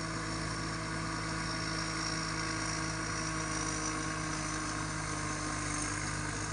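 Rice combine harvester's diesel engine and threshing machinery running steadily at working speed while harvesting, a constant hum with several steady tones.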